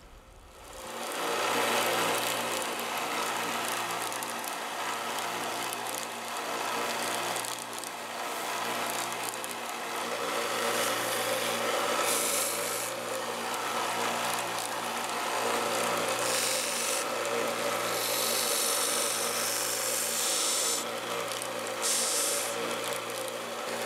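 A 1-inch by 30-inch benchtop belt sander running, its abrasive belt grinding the stitched edge of a thick leather holster. Under the motor's steady hum, the sanding hiss swells and fades as the edge is pressed to the belt, strongest for a few seconds past the middle.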